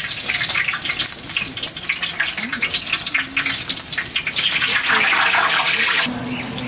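Batter-coated eggplant slices (beguni) deep-frying in hot oil in a large karahi: a steady crackling sizzle that swells louder about five seconds in, then drops off suddenly about a second later.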